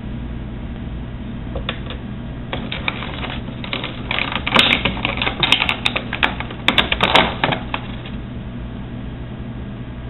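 Quick clusters of plastic clicks and rattles from an action figure or its plastic packaging being handled, busiest in the middle, over a steady low hum.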